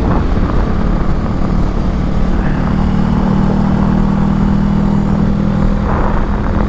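Honda Rebel motorcycle running at a steady cruise, with wind rushing over the rider's microphone. A steady engine hum stands out from about a second and a half in until near the end.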